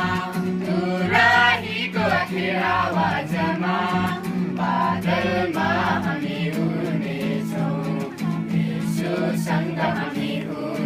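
Music: a Nepali Christian song, voices singing over steady instrumental backing.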